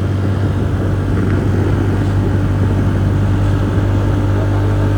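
TVS Ntorq 125 scooter's single-cylinder engine running steadily while riding, a constant low hum with a rush of wind and road noise over it.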